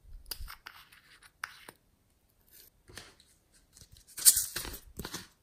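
Small plastic jars and lids being handled and opened: scratchy clicks and scrapes in the first two seconds, then a louder burst of plastic clicking and rubbing about four seconds in, with one sharp snap at its start.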